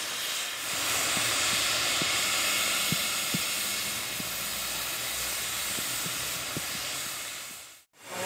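Narrow-gauge steam locomotive standing in steam, giving off a steady hiss of escaping steam with a few faint ticks. The sound cuts off abruptly near the end.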